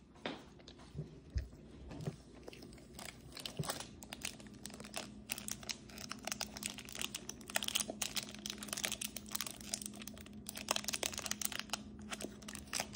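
A clear plastic gummy-candy wrapper crinkling as small hands handle it and pull at it: a dense run of quick, sharp crackles that gets busier after the first few seconds. A faint steady hum runs underneath.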